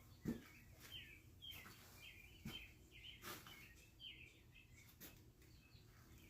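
Near silence: faint birds chirping, with a few light taps.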